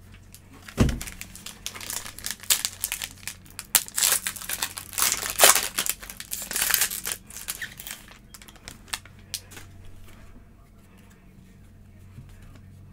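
Foil wrapper of a 2020 Panini Select football card pack being torn open and crinkled by hand, after a single thump about a second in. The crinkling fades after about eight seconds into a few light clicks as the cards are handled.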